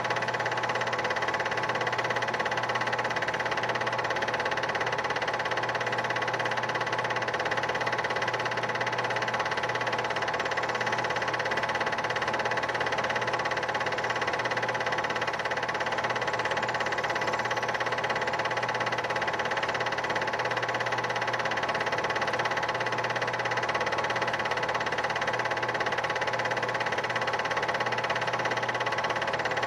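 Steady mechanical whirr and hum of a home-movie film projector running, without a break or change in pitch.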